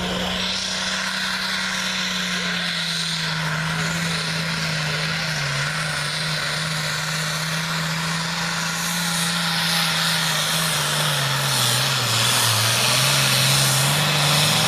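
International Harvester pulling tractor's turbocharged diesel engine running under full load as it drags the weight-transfer sled down the track. Its pitch holds steady, then sags about two-thirds of the way through as the sled bogs it down, before picking up again, and the sound grows louder in the second half.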